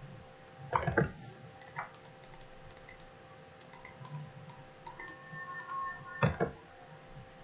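Computer mouse clicking: scattered light clicks, with a louder pair of clicks about a second in and again near the end, over a faint steady hum.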